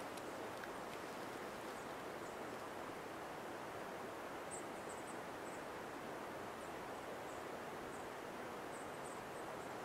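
Steady hiss of a quiet forest, with faint, very high chirps in small clusters about halfway through and again near the end.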